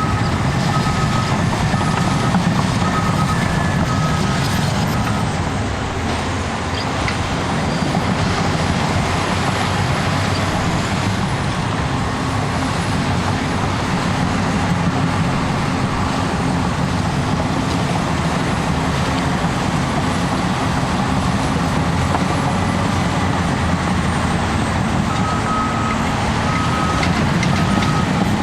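Cat D6T bulldozer's diesel engine running steadily under load. Its backup alarm beeps at an even pace in the first few seconds and again near the end, as the dozer reverses.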